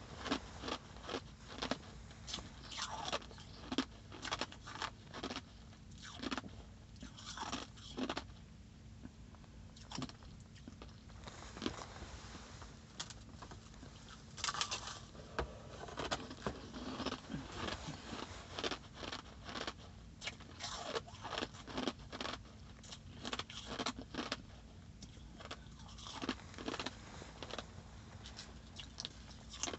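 Close-up crunching of packed crushed ice being bitten and chewed, in irregular clusters of crisp cracks, along with crumbling as fingers break pieces off the ice blocks.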